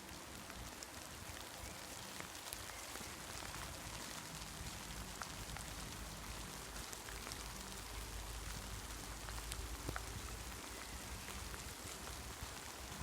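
Light rain falling in woodland: a steady patter with scattered single drops. A low rumble runs underneath.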